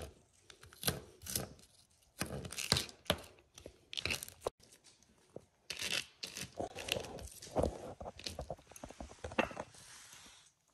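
Chef's knife chopping celery on a plastic cutting board: irregular knocks of the blade and short scrapes as the diced pieces are pushed and gathered up.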